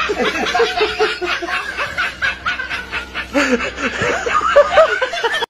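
Continuous rapid laughter, chuckling in quick repeated pulses. It is a laugh sound effect laid over a comedy punchline, and it cuts off abruptly at the end.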